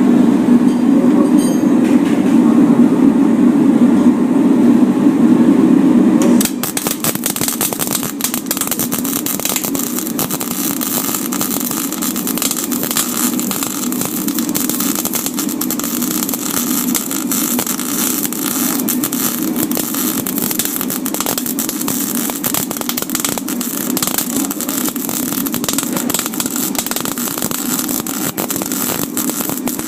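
A loud steady low hum for about six seconds, then a MIG welding arc strikes and crackles steadily, a dense run of rapid sputtering clicks, as wire is fed into the weld.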